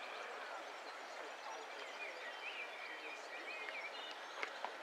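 Steady outdoor hiss of open-air ambience, with a bird chirping a quick wavering phrase from about two seconds in, and two or three sharp clicks near the end.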